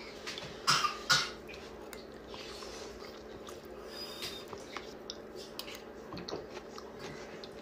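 A metal spoon against a white soup bowl, with two louder short scrapes about a second in, then soft eating sounds and small clicks over a steady low hum.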